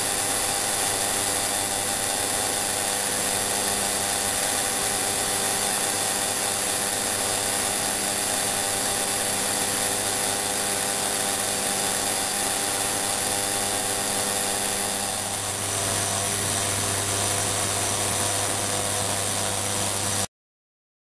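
Ultrasonic fuel-injector cleaning bath running with six fuel injectors submerged in heated solution and being pulsed: a loud, steady high-pitched whine over a low hum. Its tone shifts slightly about fifteen seconds in, and it cuts off abruptly near the end.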